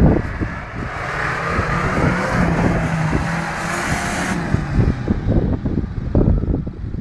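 Suzuki Samurai off-road 4x4 engine pulling hard under load as it climbs a steep dirt bank. A loud hiss over it stops suddenly about four seconds in, and uneven low thumps follow.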